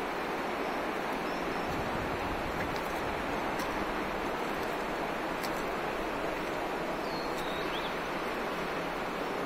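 Steady rushing of a rocky mountain river running fast over stones, with a faint short bird call about seven seconds in.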